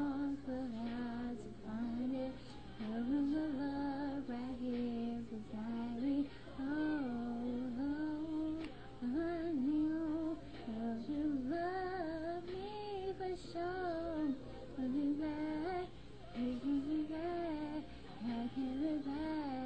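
A young woman singing a slow melody alone: a single voice in phrases of held, bending notes with short breaths between, no instrument heard. A low steady hum sits underneath.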